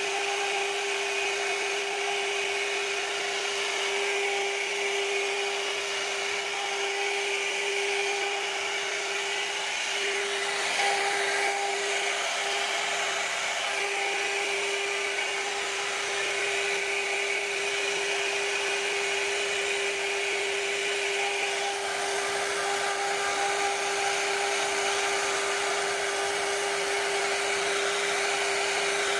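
CNC router spindle running at a steady whine while its bit carves into a wooden door panel, with the hiss of the cut running under it.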